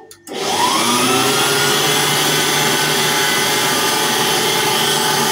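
Electric stand mixer mixing bread dough: it cuts out for a moment, then spins back up with a rising whine and runs steadily at speed.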